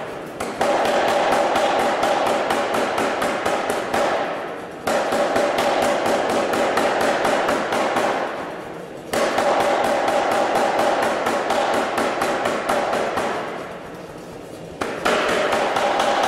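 Anyang 25 kg self-contained pneumatic power hammer striking hot steel in rapid series blows. The blows come in runs of about four seconds, each run broken by a short, quieter lull.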